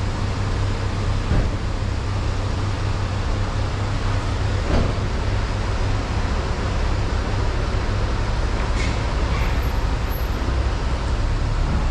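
Porsche Cayenne SUV idling and creeping forward at low speed, a steady low engine rumble. A faint knock sounds about five seconds in.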